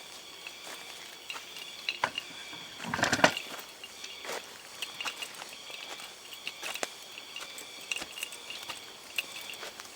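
Insects calling steadily in a pulsing chorus, with scattered crackles and snaps, like movement in dry leaf litter, and a louder rustling crunch about three seconds in.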